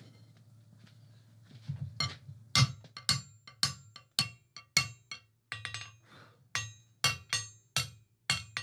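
Hot end of a square steel bar being upset on an anvil: sharp metallic strikes about twice a second, each with a brief ring, starting about two seconds in, to thicken the bar's end.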